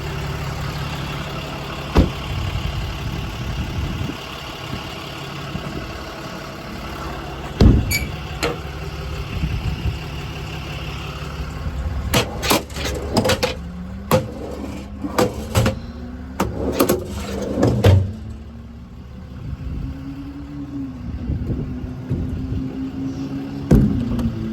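Ram 5500's 6.7-litre Cummins diesel engine idling steadily. There are sharp knocks about two and eight seconds in, and a run of clatters and bangs from about twelve to eighteen seconds in. After that a wavering drone rises and falls slowly in pitch.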